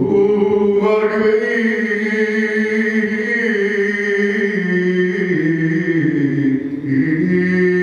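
A man singing one long drawn-out note into a microphone. The pitch dips about five seconds in and rises again near the end.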